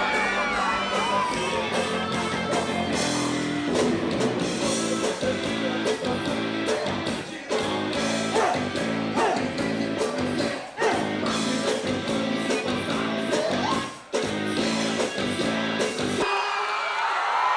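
Rock band playing live: electric guitar, bass and drums with a male lead singer, to a steady beat. The crowd cheers over the start, and about a second before the end the band drops out, leaving the crowd cheering and whooping.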